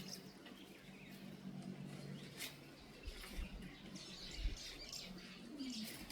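Birds chirping, with short high calls that come mostly in the second half, and a few low thumps.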